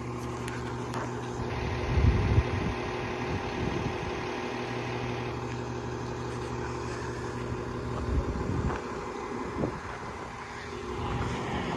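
Crane truck's engine running steadily while the boom holds the flagpole, a low even hum, with a few louder low rumbles about two seconds in and again around eight seconds.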